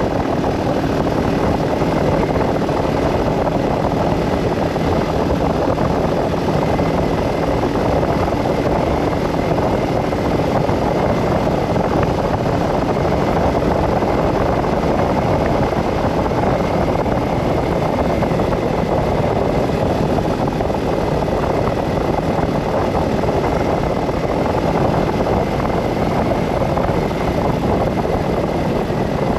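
Steady running noise of a vehicle driving along a highway: engine and road noise, even in level throughout, with a faint steady hum fading out about halfway through.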